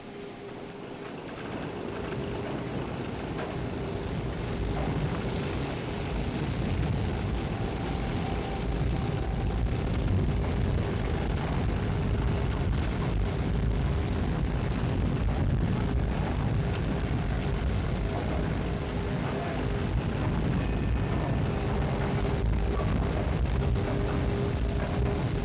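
Heavy industrial rumble of the winches hauling a blast furnace on steel cables, building up over the first few seconds and then running steadily.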